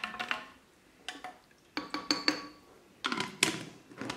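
A spoon knocking and clinking against a large glass jar as lemon juice and sugar are stirred to dissolve the sugar. The clinks come in four short clusters, about a second apart, each with a brief glassy ring.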